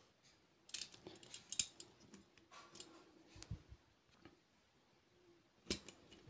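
Faint clicks and scrapes of a Corgi Major diecast metal toy aerial ladder truck being handled and moved by hand: sharp clicks about a second in, a short scrape a little later, a couple of dull knocks mid-way and more clicks near the end.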